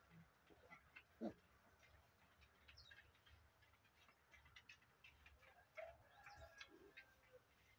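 Faint sounds of piglets eating mash from a feed pan: many small clicks of lapping and chewing, a short low grunt about a second in, and a few faint high chirps.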